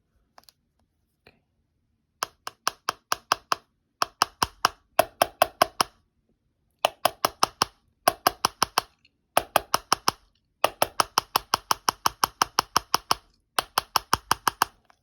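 Runs of sharp, rapid clicks from hands working an iPhone 6s, about six or seven a second, in bursts of one to two seconds with short pauses between them, starting about two seconds in.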